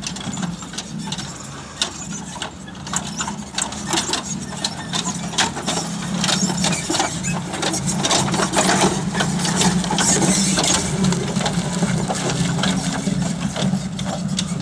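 4x4 SUV's engine running steadily at low revs as it crawls over rough ground, with a rapid, busy rattle of clicks over it. It gets louder midway.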